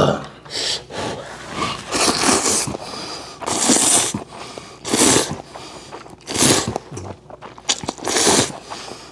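A person slurping ramen noodles loudly: a series of about five or six long, wet slurps, each around half a second, spaced a second or so apart.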